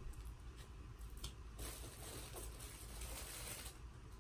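Faint rustling and handling noise, with a soft hiss-like rustle from about a second and a half in until nearly the end, and a few small clicks.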